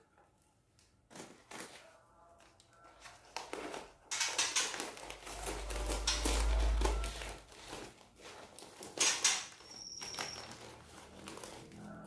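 Crinkling and rustling as something is handled, with scattered knocks and a brief low rumble. A short, high, steady whistled note sounds near the end.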